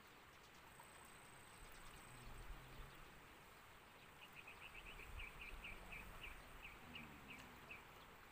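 Near silence of faint outdoor ambience, with a run of short high chirps from a small animal starting about four seconds in, quick at first and slowing before they stop.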